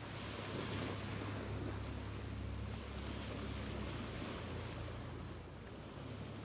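Steady wash of sea surf and wind, with a low rumble underneath.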